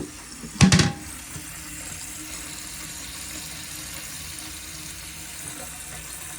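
New toilet fill valve refilling the tank after a flush: a steady hiss of running water. A loud, short knock comes about a second in.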